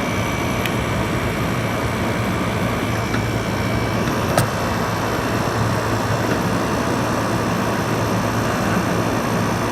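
GE 5,000 BTU window air conditioner running steadily with its compressor on: a steady rush of fan air over a low hum, the compressor itself barely audible. A faint high whine stops about four seconds in, and there is a single click just after.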